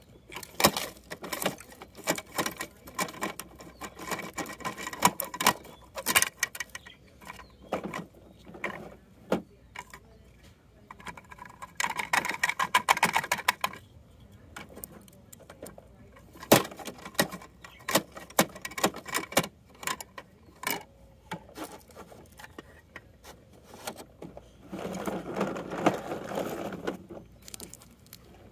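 Hard plastic clicking and clattering as a toy side-loader garbage truck's lifting arm is worked by hand and toy wheelie bins are knocked and set down. A denser run of rapid clicks comes about twelve seconds in, and a duller, steadier noise comes near the end.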